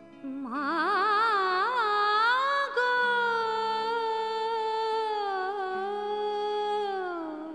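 Background music in an Indian classical style: a solo voice sings one long, ornamented phrase over a steady drone. The voice wavers through turns at first, holds a long note, and falls away near the end.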